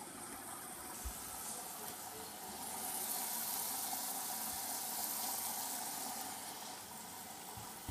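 Water hissing and rushing inside a Hoover Dynamic 8 Pulse washing machine on a wool wash, growing louder for a few seconds in the middle and then easing, with a few faint knocks.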